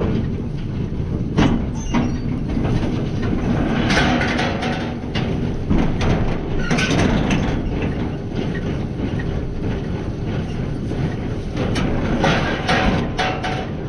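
Tractor pulling a small square baler through straw: a steady engine and machinery drone with repeated knocks and clatter from the baler.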